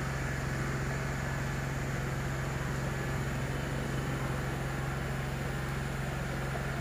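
Steady hiss and low hum of a 1966 Esslingen steam locomotive standing in steam.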